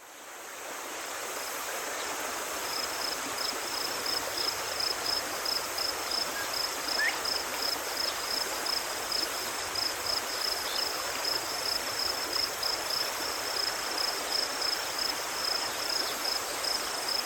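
Running water with a high insect trill pulsing about three times a second over it, fading in from silence at the start.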